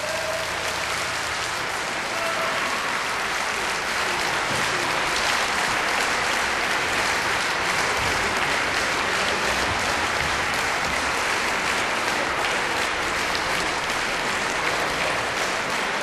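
Live concert audience applauding, building over the first few seconds and then holding steady.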